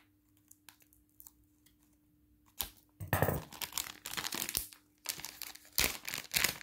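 A packet of heat patches being torn open and crinkled by hand. A few faint clicks and rustles come first, then from about three seconds in there is loud, irregular tearing and crinkling of the wrapping.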